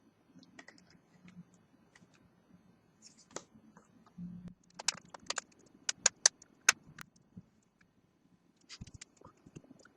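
Handling sounds of a Samsung Galaxy Note 2 being put back together by hand: scattered light clicks and taps, with a quick run of sharp plastic clicks from about five to seven seconds in.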